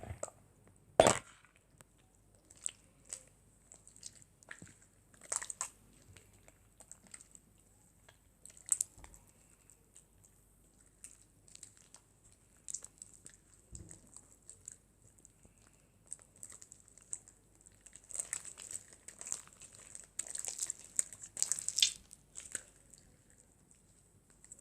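Clear glue slime being mixed with activator, giving scattered wet crackles and clicks that grow busier near the end.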